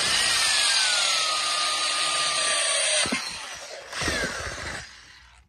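Black & Decker drill with a quarter-inch masonry bit boring through the bottom of a plastic flower pot: a grinding whine that drops in pitch, stops about three seconds in, then a second short burst about a second later that dies away.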